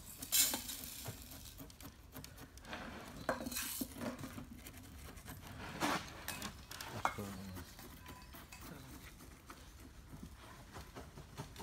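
Gritty scrapes and rustles of granular bonsai soil being poked and worked into a pot with a chopstick, with a few sharper clicks scattered through.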